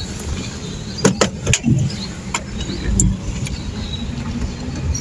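A car's engine and road noise heard from inside the cabin while driving slowly: a steady low rumble, with several short sharp clicks.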